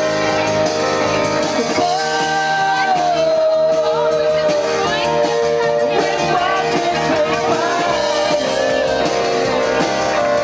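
Live rock band playing a song, a singer's voice over electric guitars, drums and keyboard.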